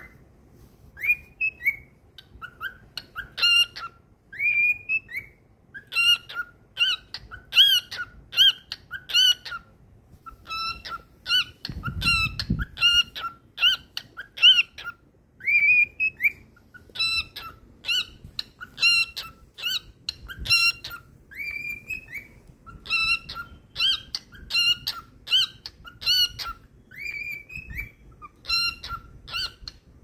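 Lutino cockatiel singing: a long repeating whistled song of short chirped notes, about two a second, broken every few seconds by a longer upward-swooping whistle.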